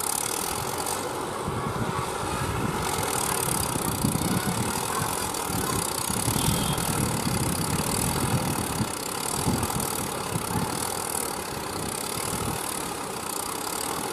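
HMT 3511 tractor's diesel engine running while the tractor is stuck with its rear wheel dug into rubble and dry mud; it grows louder and rougher through the middle, then eases near the end.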